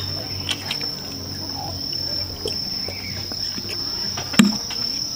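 Insects chirping in a steady high-pitched drone, with small eating and drinking noises and a sharp knock about four seconds in.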